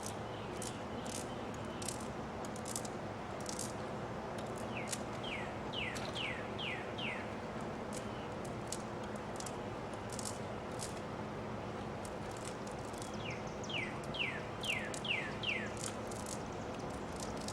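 A bird singing twice, each time a quick run of about five down-slurred chirps, over a steady background hiss with scattered faint high clicks.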